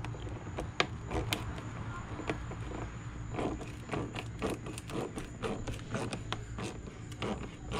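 Screwdriver loosening the hose clamp on a car's air intake duct: irregular light clicks and scrapes of the tool and parts, over a steady low hum.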